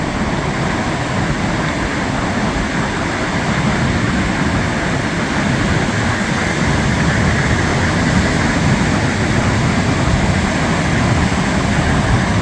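Steady wind noise buffeting the microphone, mixed with the wash of breaking surf.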